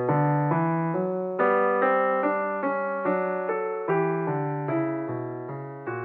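Piano music: slow struck notes and chords, each left to ring and die away, several a second.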